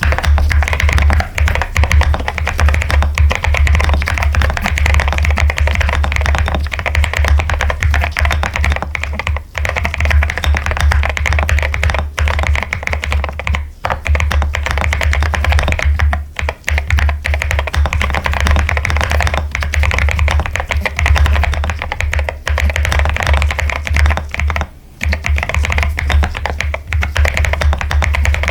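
Fast, continuous typing on a mechanical keyboard, a dense run of key clicks broken by a few short pauses.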